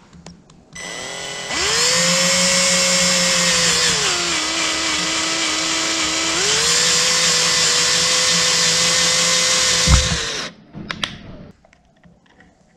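Power drill spinning a bit in a screw hole in a Stihl FS80 trimmer's gearhead housing. It speeds up, runs at a steady whine, slows under load for a couple of seconds in the middle, speeds back up, and stops near the end with a knock just before.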